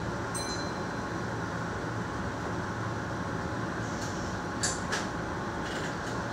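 Steady hum and hiss of a Keihan electric commuter train standing at an underground station platform, with two sharp clicks about a third of a second apart roughly halfway through.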